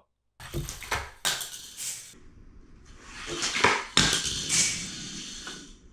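A toy car rolls down a paper ramp with a rising rush, flies off the curved jump, and lands with a sharp clack on a tile floor about four seconds in, then clatters and bounces along it. A few clicks and knocks come before the run.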